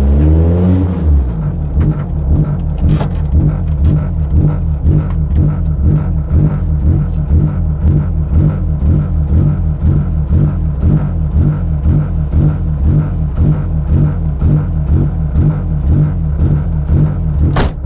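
Renault Clio Williams rally car's four-cylinder engine, heard from inside the cabin, its revs dropping just at the start and then idling with a lumpy, regular pulsing beat. A sharp click sounds near the end.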